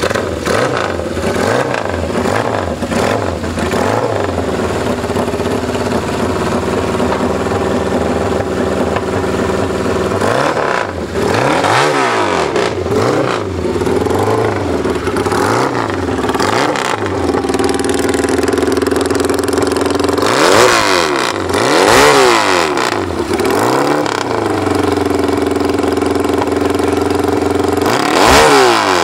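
Yamaha XS dirt-track motorcycle engine running on its stand, blipped lightly at first and then revved up and back down several times.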